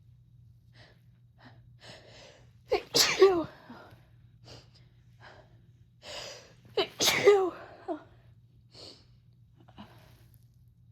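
A woman sneezing twice, about four seconds apart, each loud sneeze preceded by a gasping in-breath, with short sniffs and breaths between them. It is a sneezing fit that she puts down to a menthol lotion used at the end of a massage.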